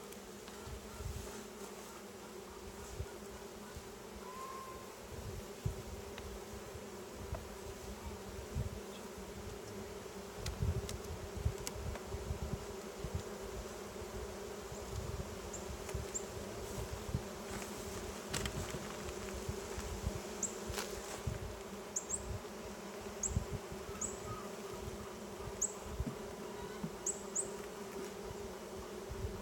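A colony of honeybees buzzing steadily around an open, smoked hive, with scattered low thumps through the buzz.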